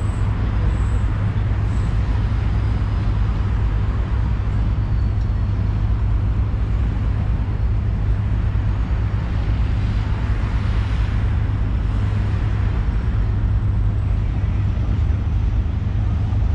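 Steady road traffic noise, a continuous low rumble with a vehicle swelling past about ten seconds in.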